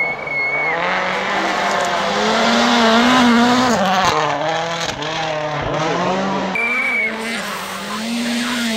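Toyota Yaris WRC rally car's 1.6-litre turbocharged four-cylinder engine held at high revs at full attack on a snow stage, dipping briefly a few times at gear changes or lifts.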